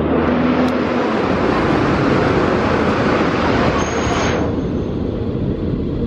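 Street traffic with a van passing close by: a loud rushing noise over a steady low engine rumble. The rushing drops away about four seconds in, just after a brief high squeal, leaving the low traffic rumble.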